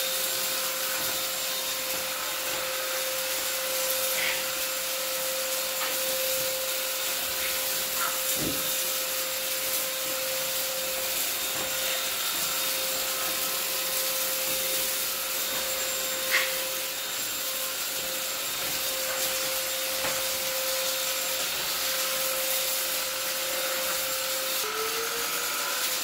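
Silvercrest SHAZ 22.2 C3 cordless stick vacuum running in normal mode over a tiled floor: a steady rushing hiss with a constant motor whine. There are a few sharp ticks as bits of rice and lentils are sucked up, and near the end the whine dips and climbs back.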